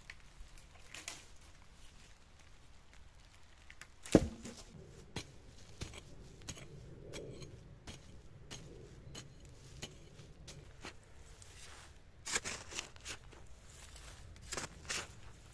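A single heavy thud about four seconds in, then a small hand shovel digging into soil and dry leaf litter: repeated short scrapes, chops and the crunch of dry leaves, busiest near the end.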